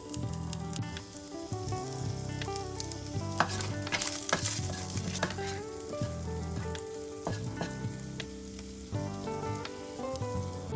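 Whole spices and lemongrass sizzling in hot oil in a pot or wok as they are stirred, with scattered clicks of the utensil against the pan.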